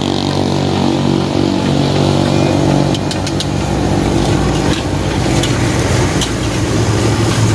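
Metal spatula clinking and scraping against an aluminium wok as fried rice is stirred, a few sharp clinks about three seconds in and more near the end, over a steady low mechanical hum.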